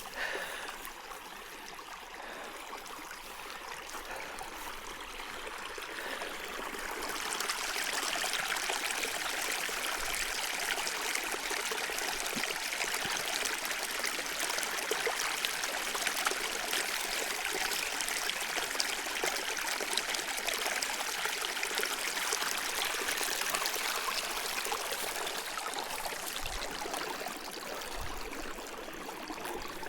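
A small seasonal meadow stream running over its bed, a steady rush and trickle that grows louder about seven seconds in and then holds.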